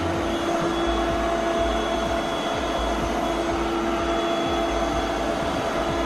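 Tikom G8000 Pro robot vacuum running in edge-cleaning mode: a steady hum of its suction motor with a constant whine over it.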